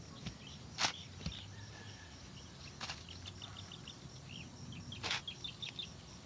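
Shovel blade scraping into loose soil, three short strokes about two seconds apart, with faint bird chirps in between.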